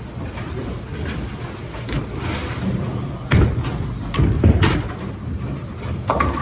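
Bowling alley sound: a steady low rumble of bowling balls rolling down the lanes, with two loud thuds a little past the middle, about a second apart, as balls hit the lane.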